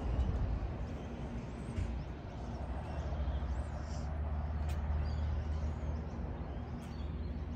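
Outdoor ambience: a steady low rumble with a few soft clicks and faint bird chirps.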